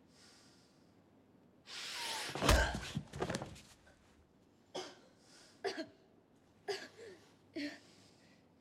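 A rustle and a heavy thump, then four sharp strokes about a second apart, each followed by a short gasp: a cane striking someone who stifles her cries.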